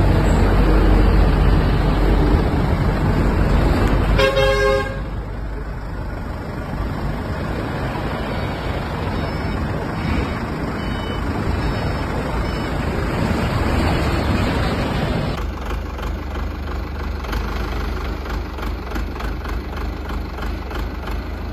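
Continuous machinery noise from a 160-ton horizontal waste paper baler at work, with a short horn toot about four seconds in. About fifteen seconds in, the noise changes to a fast regular rattle.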